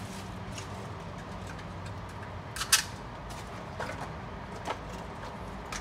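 Handling noise: a few light clicks and taps, the loudest about three seconds in, over a steady low hum.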